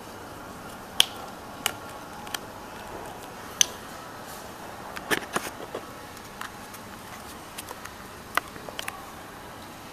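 Handling noise from fingers on a phone camera: about a dozen scattered sharp clicks and taps, the loudest about a second in and near four seconds, over a steady hiss.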